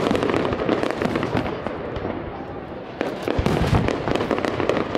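Aerial fireworks display: shells bursting in rapid succession, a dense run of sharp bangs and crackling, with a fresh loud volley starting about three seconds in.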